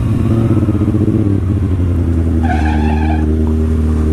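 Motorcycle engine slowing from riding speed, its pitch dropping, then settling to a steady idle as the bike rolls to a stop. A brief higher-pitched tone sounds about two and a half seconds in.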